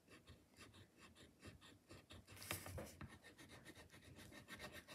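Colouring pencil scratching faintly on paper in quick repeated strokes, colouring in.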